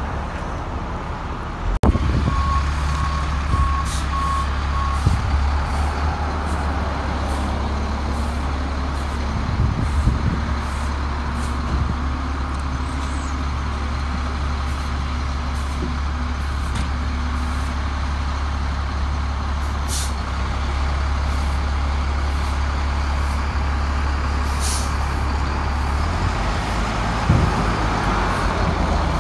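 Fire engine's diesel engine running steadily, with a short run of evenly spaced beeps a couple of seconds in. About two-thirds of the way through come two sharp hisses of air from the brakes, and the engine note changes near the end as the truck moves off.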